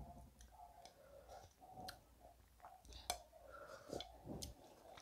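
Faint sipping from a plate held to the mouth, with a few small clicks and mouth noises over near silence.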